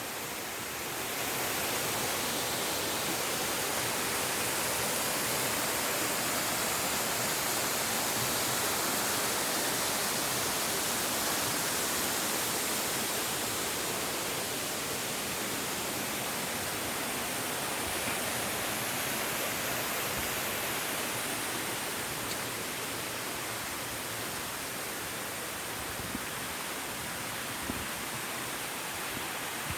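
Waterfall rushing: a steady, even hiss of falling water, slightly louder in the first half, with a few faint clicks near the end.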